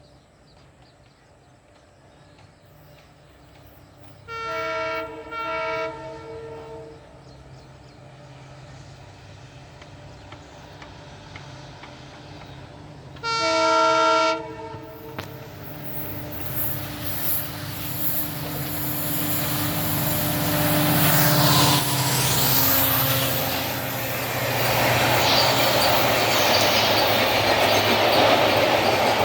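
WDP4D diesel locomotive, with its two-stroke EMD 710 V16 engine, sounding its horn in two short blasts and then one longer blast. Its engine hum and the wheels clattering over the rail joints then grow steadily louder as the train approaches.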